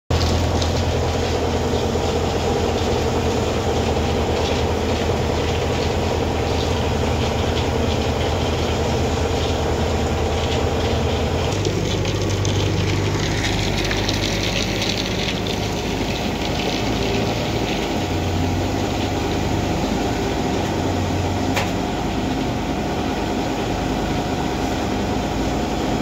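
Electric motor-driven flour mill (chakki) running steadily through its V-belt and pulley, a loud continuous machine hum and rattle whose low hum changes about halfway through. It is making an unusual noise that the owner suspects comes from a loose drive belt.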